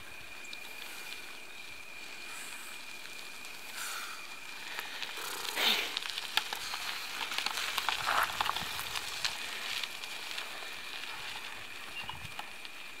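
Tyres of a loaded bikepacking bicycle crunching and crackling on a gravel dirt track as it rides past, loudest about six seconds in, over a steady thin high tone.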